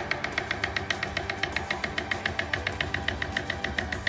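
Chef's knife chopping very fast on a plastic cutting board, an even rhythm of sharp strokes at about eight a second.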